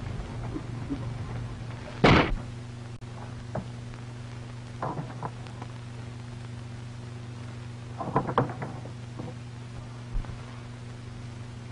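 Steady low hum of an old film soundtrack, with one loud thump about two seconds in and a few smaller knocks and clatters later.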